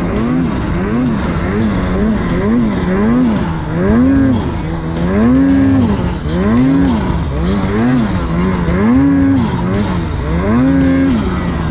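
Snowmobile's turbocharged two-stroke engine, on a Ski-Doo Summit Expert Turbo R, revving up and down in quick throttle blips about once a second as the sled works through deep powder.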